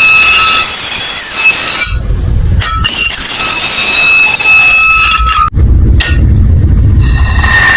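A very loud, distorted alarm sound: shrill, steady squealing tones over a hiss, broken about two seconds in and again after a short cut near five and a half seconds by a deep rumbling noise.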